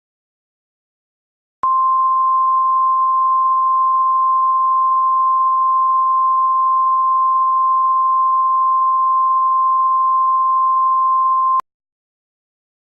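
NOAA Weather Radio-style 1050 Hz warning alarm tone. It is a single steady, loud pitch, held for about ten seconds, and it starts and cuts off abruptly. It is the attention signal that comes before an emergency weather alert message.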